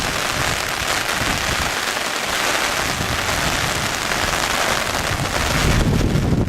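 Heavy, torrential rain falling steadily as a dense, even hiss, with an uneven low rumble underneath.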